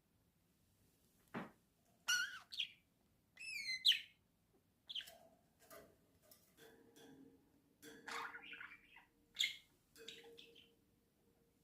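Pet budgerigars chirping in short, sweeping calls, with a few sharp taps between them from a beak knocking on the cage.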